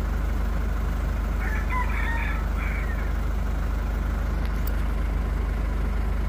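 2011 Ford Ranger's common-rail diesel engine idling steadily at about 755 RPM, running again after a no-start caused by fuel not reaching the common rail. A rooster crows once in the background about one and a half seconds in.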